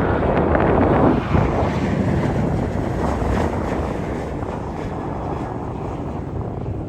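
Airliner's engines rumbling as it passes, slowly fading, mixed with wind buffeting the microphone.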